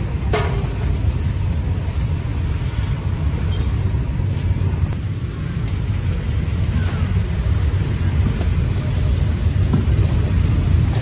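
Steady low rumble of street traffic, with a sharp knock just after the start.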